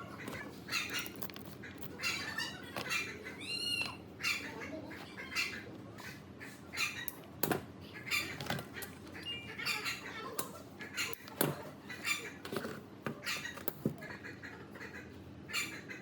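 Birds calling repeatedly in short chirps that rise and fall in pitch, with a few scattered sharp clicks or knocks.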